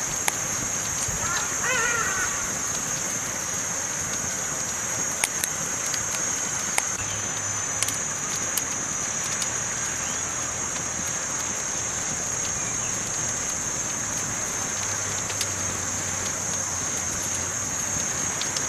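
Campfire crackling: a steady hiss with scattered sharp pops and snaps. A crow caws once about two seconds in.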